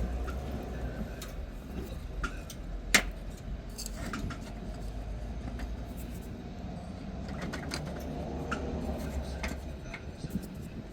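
Low steady rumble with scattered small clicks, and one sharper click about three seconds in.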